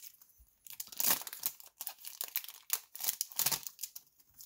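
Foil wrapper of a Magic: The Gathering collector booster pack crinkling in irregular bursts as the stack of cards is pulled out of it.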